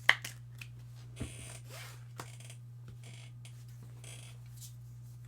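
Trading cards being handled: short soft swishes of cards sliding over one another and a few light ticks, the sharpest just at the start, over a steady low electrical hum.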